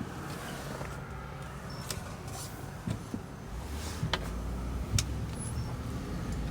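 Car being driven: steady engine and road rumble that grows louder about halfway through, with a few sharp clicks.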